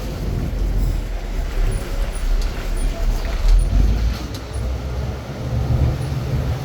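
Tour bus driving, with a steady, heavy rumble of engine and road noise heard from on board.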